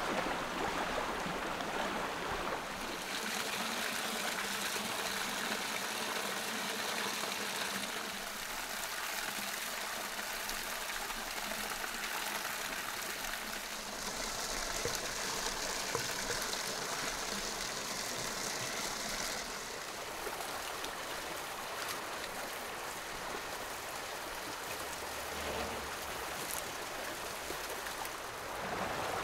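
Steady rush and trickle of flowing river water. Its tone shifts every few seconds.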